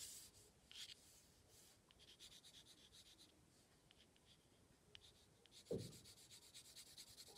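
Graphite pencil scratching and rubbing faintly across white card in quick strokes as a shadow is drawn in. A short low thump a little before six seconds in.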